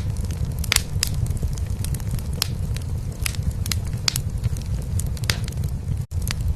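Wood fire in a fireplace crackling, with sharp irregular pops over a steady low purr of a cat. A very brief break in the sound about six seconds in.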